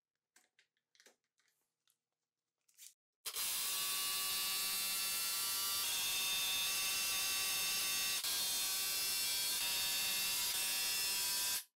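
Bosch cordless drill with a countersink bit running steadily as it pre-drills screw holes into wood, starting about three seconds in and stopping just before the end. A few faint clicks come before it.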